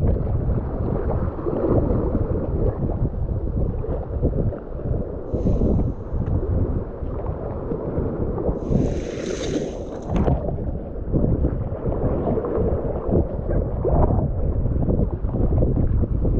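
Strong wind buffeting the microphone while kayaking in rough, wind-driven water. A short hiss comes about five seconds in, and a longer one around nine seconds.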